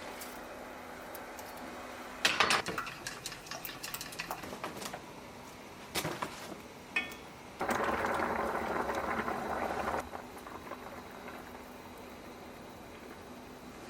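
Kitchen sounds: utensils and dishes clinking in a short clatter about two seconds in, a couple of single clicks, then a steady rushing noise for about two seconds, over a low steady hum.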